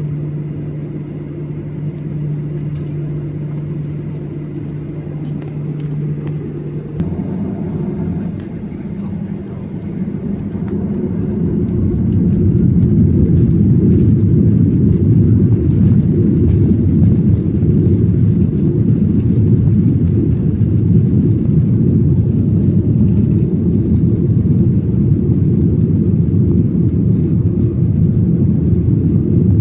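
Boeing 737-800 cabin with its CFM56 jet engines humming steadily, then spooling up about seven to ten seconds in into a loud, even rumble, as for the takeoff run.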